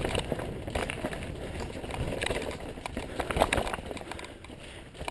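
Mountain bike riding down a dirt trail: steady rolling tyre noise with irregular clattering knocks from the bike.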